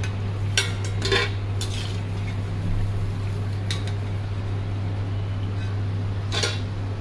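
A perforated steel ladle clinking against a steel kadai and colander as deep-fried murukku are lifted out of the oil: about five scattered sharp clinks over a steady low hum. There is little frying sizzle left, the sign that the murukku are cooked through.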